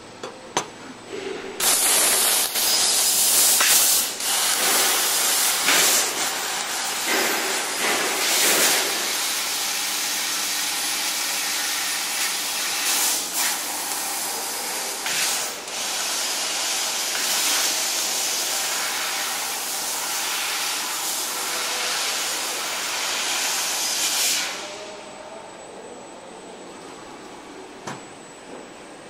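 1500 W fiber laser cutting machine cutting metal: a loud hiss of the assist gas jet at the cutting head, with a few short flare-ups along the way. The hiss starts about two seconds in and stops suddenly about five seconds before the end, leaving the machine's low hum.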